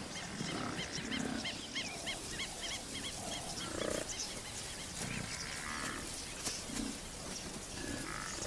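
Lion growling in short, low grunts. A small bird chirps rapidly, several notes a second, through the first couple of seconds.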